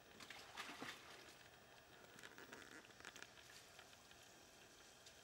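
Faint splashing and dripping of water as a black bear cub fishes in a plastic tub of water, in two short spells: about a quarter second in and again about two seconds in.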